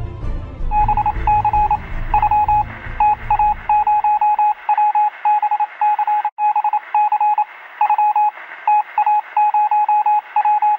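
Music fading out over the first few seconds, while a quick string of short and long beeps at one steady pitch, Morse-code style, starts over a hiss of radio static. The beeping keeps going, with a brief dropout about six seconds in.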